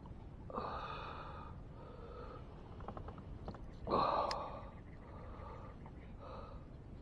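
A man's breathy gasps and grunts of effort, three of them, the loudest about four seconds in, as he lifts a heavy bass, with a few light clicks in between.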